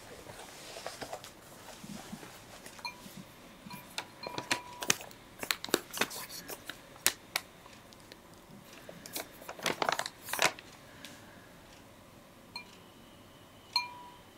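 Painting tools being handled at the work table: a run of sharp clicks and taps, like a pen and brush knocking against the ink palette, bunched from about four to ten seconds in, with a couple more near the end.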